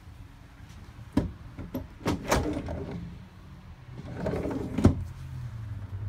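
Wooden RV cabinet doors and drawers being opened and shut: a few knocks and latch clicks, the loudest about two seconds in, then a sliding rustle that ends in a sharp knock near the end.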